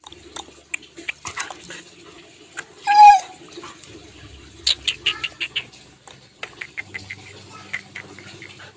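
White husky-type dog giving one short, loud, high-pitched bark about three seconds in, among scattered sharp clicks and smacks.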